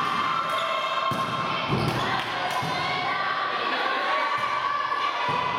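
A volleyball being struck a few times during a rally, with shouting and cheering from players and spectators over it.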